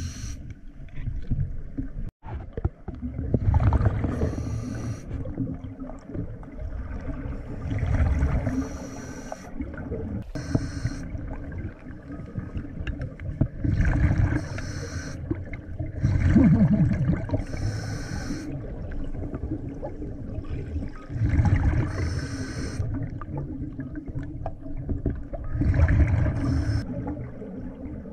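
Scuba diver breathing through a regulator underwater: a hiss on each inhale, then a low rush of exhaled bubbles, repeating about every four seconds.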